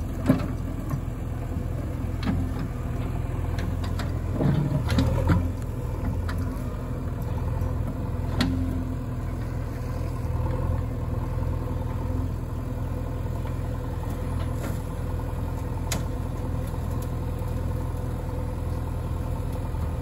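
JCB 3DX backhoe loader's diesel engine running steadily as the backhoe digs and lifts a load, working harder and louder for a moment about five seconds in. A few sharp knocks and clatters sound over it.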